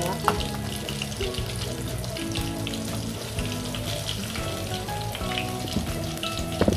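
Battered shrimp crackling and sizzling in hot oil in an aluminium wok as a metal slotted skimmer lifts them out, with a sharp metal clink near the start and another near the end. Background music plays underneath.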